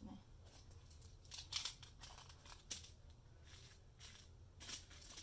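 Small plastic bags of diamond painting drills being handled and moved about, giving a series of short, faint, irregular crinkles and rustles.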